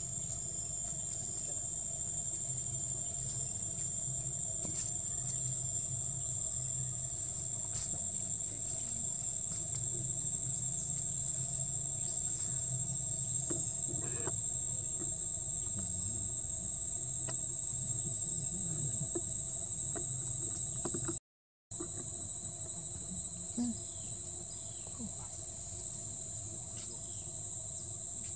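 Insects singing in one steady, unbroken high-pitched drone, over a faint low hum. The sound drops out completely for a split second about three-quarters of the way through.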